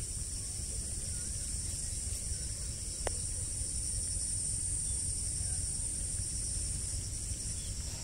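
Steady, high-pitched chorus of insects such as crickets or cicadas, over a low rumble, with a single faint click about three seconds in.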